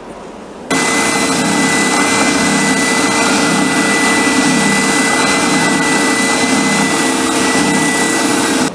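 Spindle sander running with a wooden hammer handle pressed against its sanding drum: a steady, loud machine whine with the rasp of wood being sanded. It starts abruptly under a second in and cuts off abruptly near the end.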